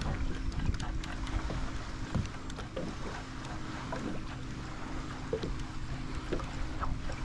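Wind on the microphone and small water sounds around a fishing kayak, with a faint steady hum underneath and scattered light clicks.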